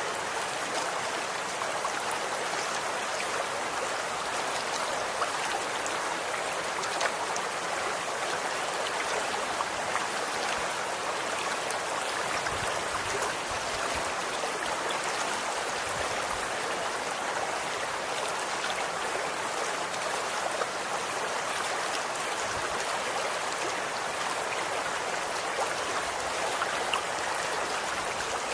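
Running water flowing steadily, a constant rush with small splashing ticks scattered through it.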